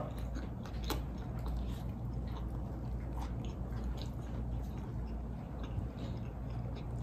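A person chewing a mouthful of bread close to the microphone, with small wet mouth clicks and smacks over a low steady hum.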